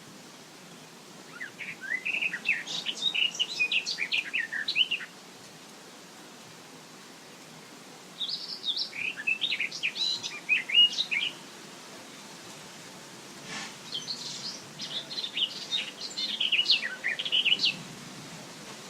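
A songbird singing three phrases of quick, varied notes, each lasting a few seconds, with pauses of a few seconds between them, over a steady hiss of wind in a meadow.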